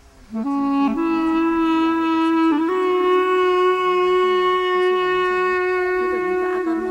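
Background music: a wind instrument plays slow, long held notes that step up in pitch three times, the last note held for about four seconds, over a faint, wavering lower accompaniment.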